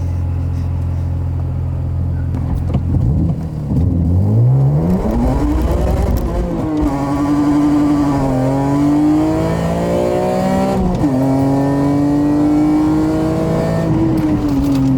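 BMW E46 M3 straight-six engine running steadily, then revving up hard about three and a half seconds in. It is then held at high revs with the pitch wavering up and down and a sudden jump about eleven seconds in, as the car is driven through a donut.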